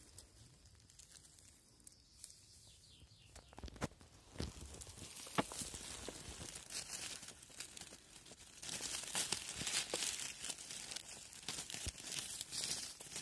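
Dry fallen beech leaves rustling and crunching as a hand pushes through the leaf litter, louder in the second half, with a few sharp clicks among them.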